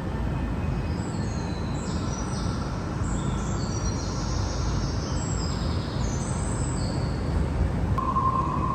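Steady low rumble of room ambience with a run of short, high chirping tones over it, and a steady mid-pitched tone that starts near the end.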